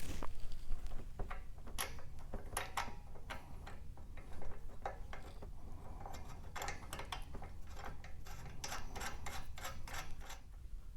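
Irregular light metallic clicks and ticks of hand work fitting the bolts and nuts of a Ford Model A's exhaust pipe-to-manifold clamp, coming in quicker runs in the second half.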